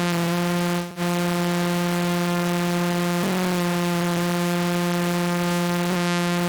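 A single held synthesizer note, rich in harmonics, played through Ableton Live's Chorus effect. It is briefly cut and re-struck at about 1, 3 and 6 seconds in.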